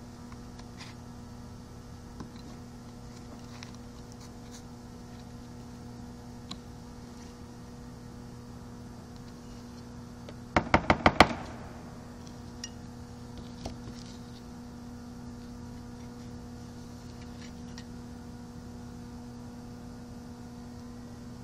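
Small loose steel parts from a caster wheel's ball bearings (cages and pressed-steel races) handled on a tabletop: a quick run of about seven sharp metallic clicks about halfway through, and a few faint taps elsewhere, over a steady low hum.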